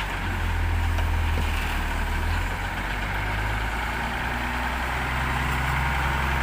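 Engine of a heavy hauling vehicle running steadily while it lowers a boat from the shipyard, its low note shifting a couple of times.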